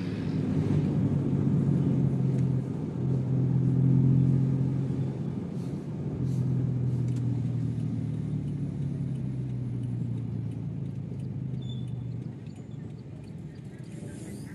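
Car engine and road noise heard from inside the cabin while driving. The low hum shifts in pitch a few times and gets quieter near the end as the car slows.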